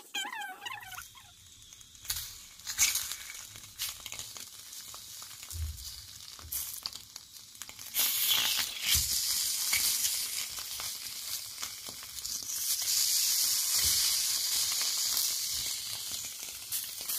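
Sausages on wooden skewers sizzling in a frying pan, with scattered clicks of the skewers knocking against the pan as they are turned. The sizzling gets much louder about eight seconds in and again a few seconds later.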